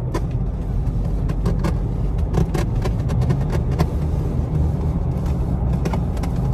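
Ford Ranger pickup driving, heard from inside the cab: a steady low engine and road rumble with scattered light clicks and knocks.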